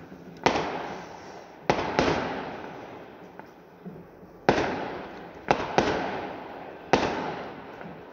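Fireworks going off: about seven sharp bangs at irregular intervals, some in quick pairs, each dying away in a long echoing tail.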